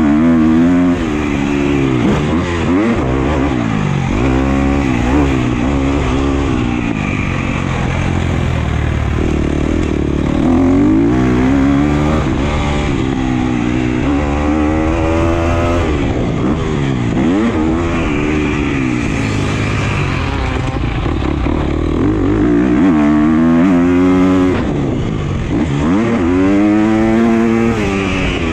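2017 Husqvarna FC250's four-stroke single-cylinder engine under hard riding, the revs climbing and dropping every second or two as the throttle is opened and shut through gear changes, corners and jumps.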